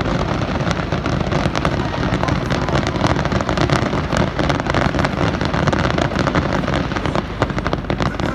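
Fireworks going off in a rapid, dense run of bangs and crackles.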